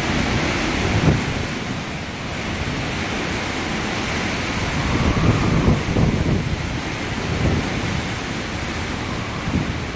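Hurricane-force wind blowing hard and gusting, with low buffeting on the phone's microphone about a second in, around the middle and near the end.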